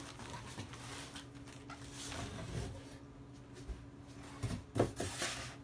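Faint rustling and handling of a plastic-wrapped pack of towels being pulled from a cardboard box and set down on a wooden counter, with a couple of short knocks near the end, over a steady low hum.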